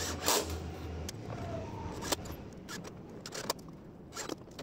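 Cordless drill driving a square-drive wood screw through a metal bracket into timber, running for about the first second, then scattered light metallic clicks and knocks.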